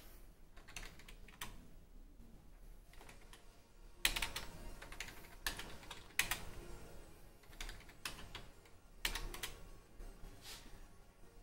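Typing on an IBM computer keyboard: irregular runs of key clicks, with louder flurries about four seconds in and again around nine seconds.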